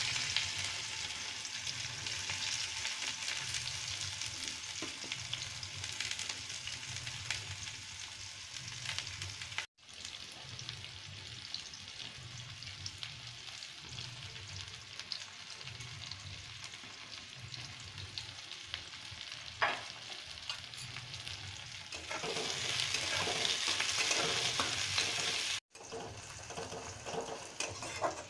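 Chopped onions sizzling in hot oil in a steel kadai, stirred now and then with a metal spoon. The sizzle breaks off for an instant twice and is louder again near the end.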